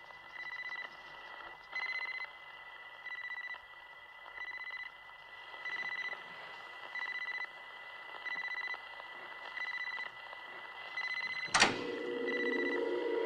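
Electronic TARDIS sound effect: a high beep pulsing about every second and a quarter over a faint hiss. Near the end a sudden sharp crack sets off a low tone that begins to rise.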